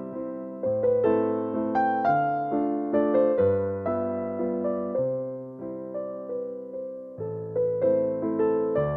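Background music: a gentle piano melody with struck notes that ring and fade over a low bass note.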